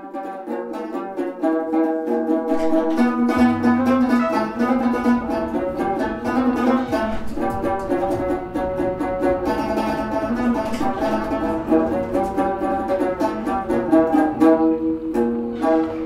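Instrumental background music with rapid repeated notes over a sustained lower line.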